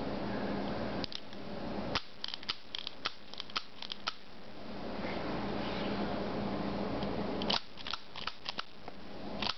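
Heritage Rough Rider .22 single-action revolver being cocked and dry-fired in quick succession, the hammer and action clicking. One rapid run of clicks comes about two seconds in and another near the end.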